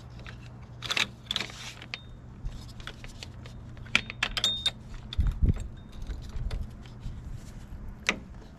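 Metal clinks and clatter as hand tools and hydraulic hose couplers are handled: several sharp clicks, some with a brief ringing, and a dull thump about five seconds in, over a steady low hum.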